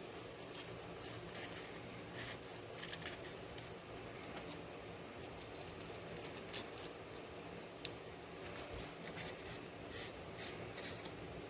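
Scattered light clicks and scratches of hand tools and small metal starter-motor parts being handled on a workbench, with two sharper clicks a little past the middle, over a steady low hum.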